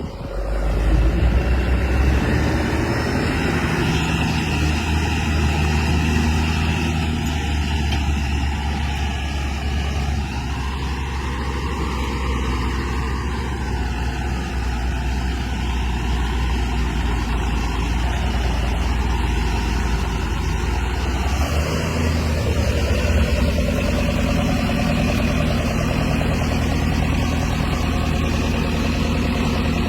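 Diesel engine of a JCB 3DX backhoe loader running steadily under digging work, a deep low hum, with its note changing about two-thirds of the way through.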